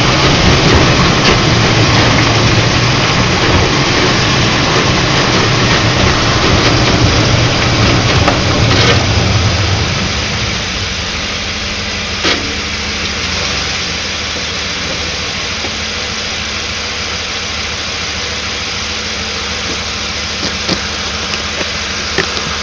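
Vehicle running, loud for about the first ten seconds and then settling to a steadier, quieter run, with a few sharp clicks or knocks: the noise blamed on the vehicle's King shocks.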